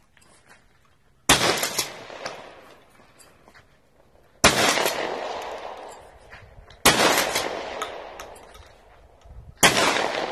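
Remington 870 12-gauge pump-action shotgun fired four times, about two to three seconds apart, each shot trailing off in a long echo.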